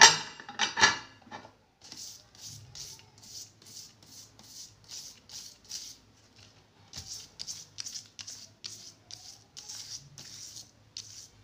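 Toothbrush bristles scrubbing a metal file in quick repeated strokes, about two to three a second, clearing solder filings caught in its teeth. A loud clatter comes in the first second, and the strokes pause briefly about six seconds in.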